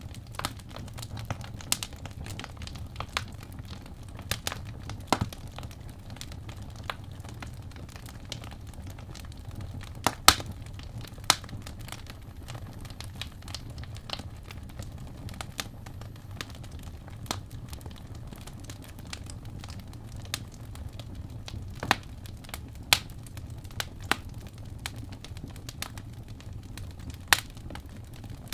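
Fireplace crackling: irregular sharp pops and snaps over a steady low rumble, with the loudest pops about ten and eleven seconds in.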